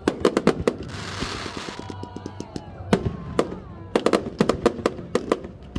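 Aerial fireworks bursting in quick succession: a cluster of sharp bangs right at the start and another from about four seconds in. Between them comes a hissing burst followed by a run of fast crackling.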